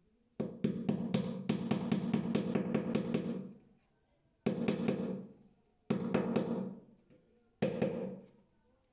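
Power drill run in four bursts: one of about three seconds, then three short ones. Each starts abruptly with a rapid rattling and fades out as the trigger is let go.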